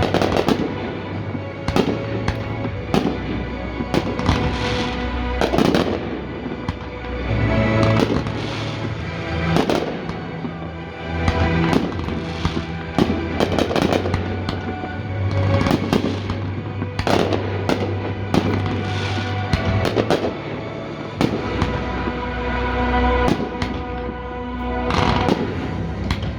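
Aerial fireworks going off in an irregular series of bangs, many close together, with music playing throughout.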